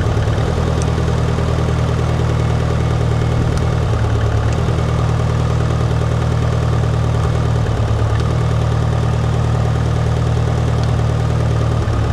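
Mitsubishi Evo's 4G63 four-cylinder engine idling, its note changing briefly about every four seconds as the ignition coils are unplugged one at a time. Each coil pulled makes the engine misfire and run rough, the sign that the coil is firing.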